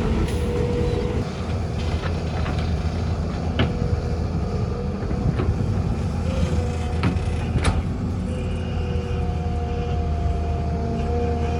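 Heavy diesel earthmoving machinery, an excavator with dump trucks, running steadily with a deep engine drone, broken by scattered sharp metallic clanks, the loudest about eight seconds in.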